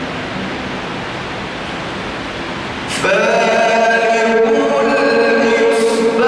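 A steady, noisy hiss, then about three seconds in a male Quran reciter's voice comes in, chanting a long, held melodic line in the ornamented tajweed style.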